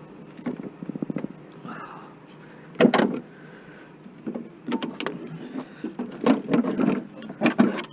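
Metal clicks, knocks and a short rattle of hand tools being worked on an electric lawnmower to take its pins off. The loudest knock comes about three seconds in, followed by a dense run of clicks and clanks.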